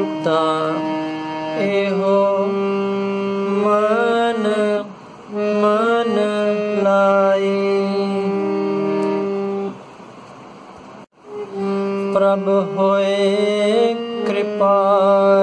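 Harmonium playing a shabad melody in sustained reed notes, with a steady low held note under the changing upper notes. The playing breaks off briefly about ten seconds in, then resumes.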